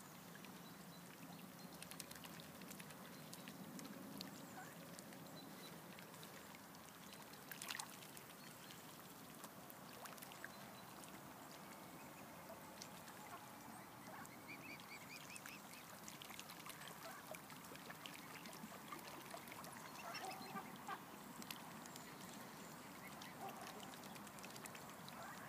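Quiet feeding sounds of mute swans and mallard ducks at floating lettuce: soft duck quacks now and then, with small splashes and clicks of bills dabbling at the water's surface.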